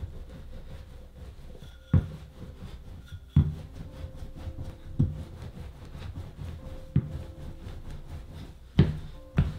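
Wooden rolling pin rolled over laminated butter dough on a marble counter: a low rumbling, with a sharp knock every second or two where the pin comes down on the counter. The loudest two knocks come close together near the end.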